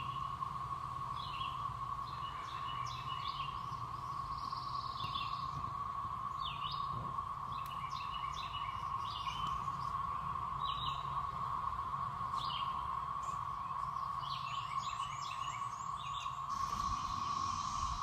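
Steady drone of a chorus of 17-year periodical cicadas, holding one pitch, with songbirds chirping in short calls over it.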